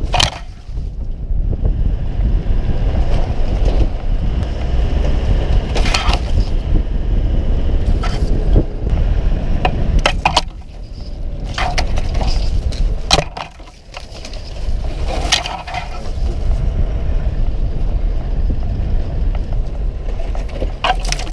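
A four-wheel-drive ute driving slowly along a bush track: a steady low rumble of engine, tyres and wind on the mounted camera, with thorny branches scraping, crackling and snapping along the bodywork several times.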